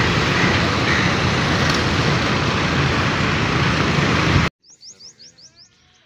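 Loud steady roadside traffic noise that cuts off suddenly about four and a half seconds in. After that, a small bird chirps quickly about six times.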